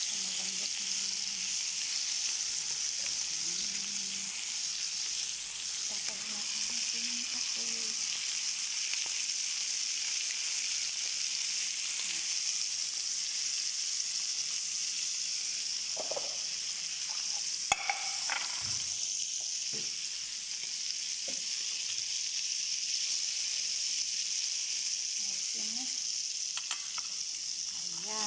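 Bone-in meat pieces sizzling steadily as they fry in hot oil in a nonstick frying pan, with a spoon stirring and turning them. Two sharp clicks close together about two-thirds of the way through.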